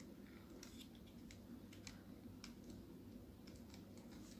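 Faint, irregular small clicks of plastic 3D-puzzle pieces knocking together as a toy Mini Cooper car model is turned in the hands.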